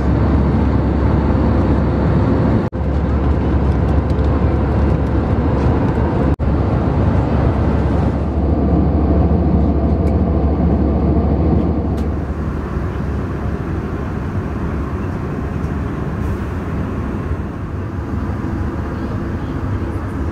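Steady jet airliner cabin noise inside an Airbus A320-200: engine and airflow drone with a heavy low rumble. It drops out briefly twice in the first seven seconds and turns a little quieter about twelve seconds in.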